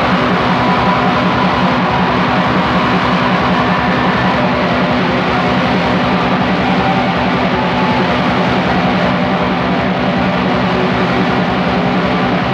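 Raw black metal: a dense, steady wall of distorted guitar and drums with a dull, lo-fi top end.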